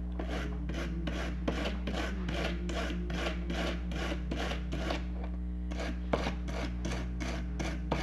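Brisk back-and-forth scrubbing of corroded battery contacts in a toy's battery compartment, about four strokes a second, with a short break about five seconds in.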